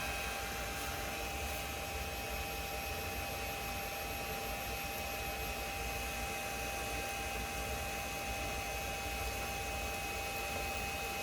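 Bridgeport milling machine running steadily at low speed, driving a lubricated tap that winds itself into a hole in the acetal part: an even motor hum with a constant faint whine.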